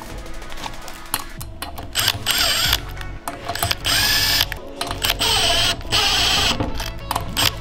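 Cordless Makita power driver spinning a socket on an extension in about five short bursts, starting about two seconds in, running down the six-millimetre bolts that fasten the brake disc to the wheel hub.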